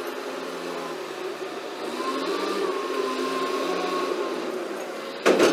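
Rough-terrain forklift's engine running steadily as it drives along the weighbridge deck carrying a test weight, with a faint whine through the middle. A single sharp, loud clank near the end.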